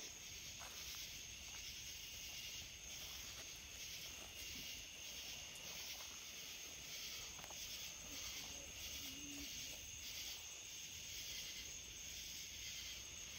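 Night insect chorus, a steady high-pitched buzzing that pulses a few times a second.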